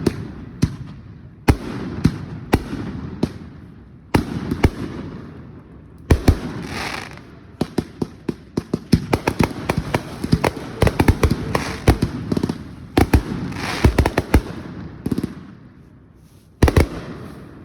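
Fireworks going off: a long series of sharp bangs, coming fast and close together through the middle, then thinning out, with a last cluster of bangs near the end.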